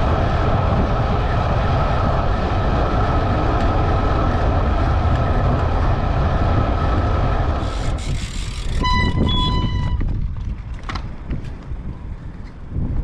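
Wind rushing over the microphone of a road bike travelling at about 50 km/h, with a steady thin whine in it; the rush drops off sharply about eight seconds in as the bike slows to a stop. Just after, a short run of electronic beeps sounds, followed by a few light clicks.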